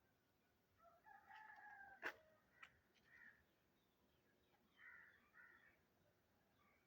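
Faint animal calls: one held, pitched call lasting about a second, cut by a sharp click, then a few shorter calls.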